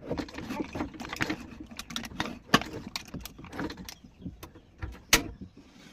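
Irregular clatter of clicks and knocks from objects being handled, with a sharper knock about halfway through and another near the end.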